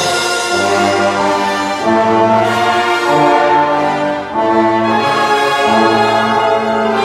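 Concert band of brass and woodwinds playing live, with held brass chords that change every second or so and a brief dip in loudness about four seconds in.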